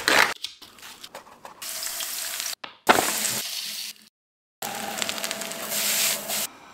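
Egg-coated rice sizzling as it is stir-fried in a pan. The sound comes in several short stretches broken off by sudden cuts, the longest near the end.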